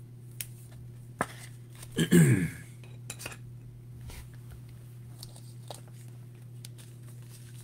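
Trading cards being slid into plastic penny sleeves and hard top loaders and set on acrylic stands: scattered light clicks, taps and plastic handling sounds. One louder, brief sound comes about two seconds in.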